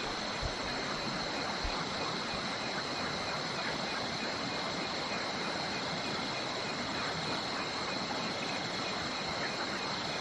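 Steady rain falling on a tarp stretched over a tent, with a constant high-pitched drone of night crickets and a few soft low thumps near the start.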